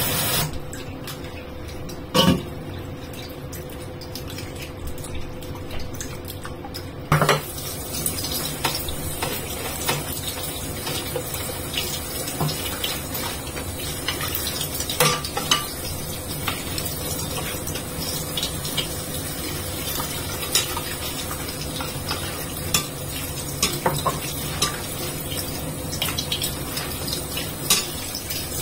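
Kitchen tap spraying water into a stainless steel mesh colander in a steel sink, with small clinks and clanks of the metal colander. The water stops just after the start, a loud knock comes about two seconds in, and a second knock about seven seconds in. After that the water runs again, with light clinks throughout.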